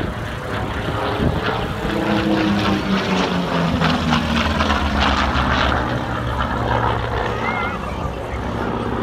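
Vought F4U Corsair's Pratt & Whitney R-2800 radial engine running as the plane flies past in a display pass. The engine note falls in pitch through the middle of the pass, then holds steady lower.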